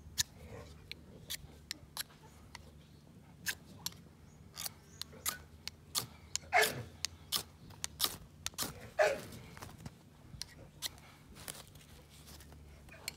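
A butter knife is scraped again and again down a ferro rod, making a string of sharp, irregular strikes about two a second, to throw sparks into cotton-bud tinder. About halfway through, and again two seconds later, a duck gives a loud falling quack.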